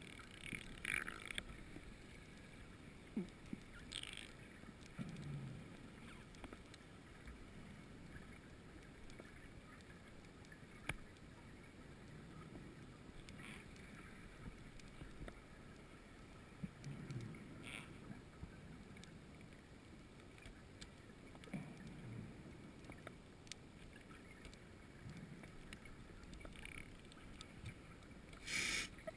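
Underwater recording of a scuba diver breathing on an open-circuit regulator: a short hiss of inhaling and a bubbling exhalation every few seconds, over a steady faint hiss, with a louder burst near the end.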